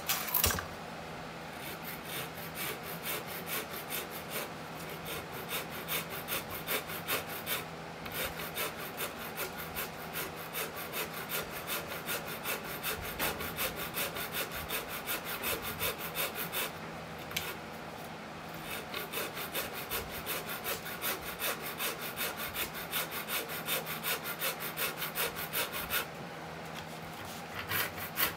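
Abrasive sanding by hand on a hardwood guitar neck's heel: quick rhythmic back-and-forth scraping strokes, stopping briefly three times before starting again.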